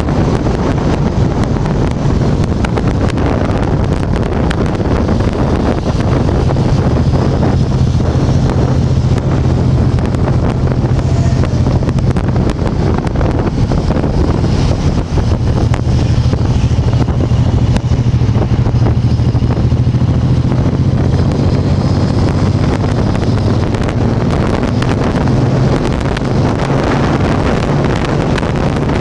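Motorcycle engine running steadily at cruising speed, heard from on the bike under heavy wind noise on the microphone. The low engine hum grows stronger about six seconds in and stays even.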